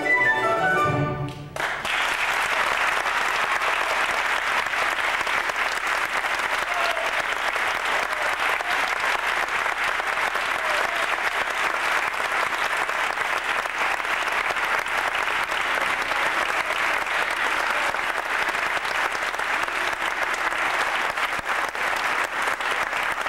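Male voices and guitars of an Andean folk ensemble end a song on a final chord about a second and a half in. The audience then applauds steadily.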